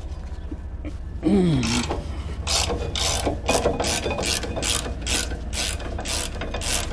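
Hand ratchet wrench clicking in quick repeated strokes, about two to three clicks a second, as bolts are worked on a wheel hub.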